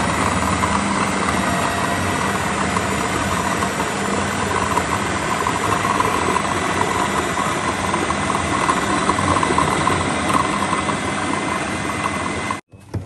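Electric food processor running steadily, its motor whirring as the blade chops a wet red pepper mixture, then switched off suddenly near the end.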